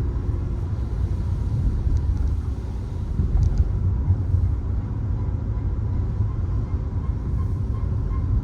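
Peugeot 3008 on the move, heard from inside the cabin: a steady low road and engine rumble.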